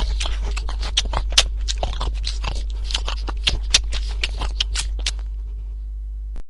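Close-up munching: someone chewing crunchy food with a dense run of irregular crackling crunches, over a steady low hum. The crunching cuts off suddenly at the end.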